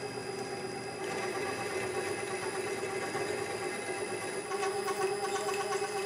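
Benchtop drill press running, its bit drilling down into the end of a copper bar clamped upright: a steady motor hum with the cutting noise of the bit, a little louder from about a second in.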